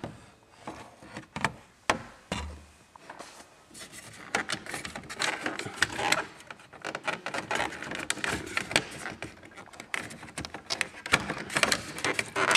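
Plastic dashboard trim and wiring connectors being worked by hand: a few sharp clicks at first, then a longer stretch of close-up rubbing, rattling and clicking of plastic parts.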